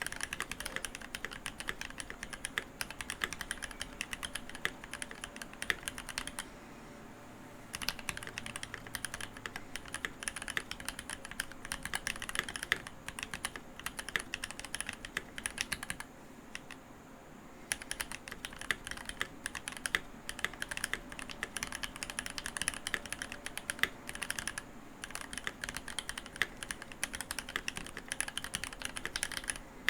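Typing on a Keychron V1 mechanical keyboard with linear Gateron Cap Milky Yellow switches and GMK ABS keycaps: a fast, continuous run of keystroke clacks, stopping briefly twice, about a third of the way in and again about halfway.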